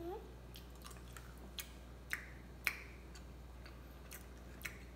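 Two people chewing jelly beans with their mouths partly open: soft, wet mouth clicks and smacks, scattered a few to the second.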